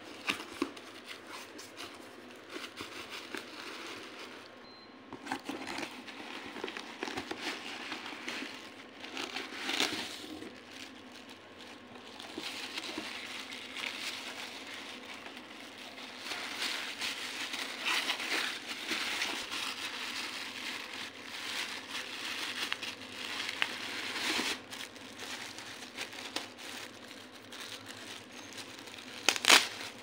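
Foam packing sheet and plastic wrap rustling and crinkling as a fan heater is lifted out of its cardboard box and unwrapped by hand. Now and then there is a sharper crackle or knock, loudest near the end.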